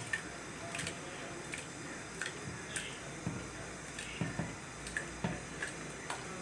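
Soaked split urad dal sliding and pattering from an aluminium bowl into a plastic blender jar, with irregular small clicks and soft wet squishes as fingers push the grains along.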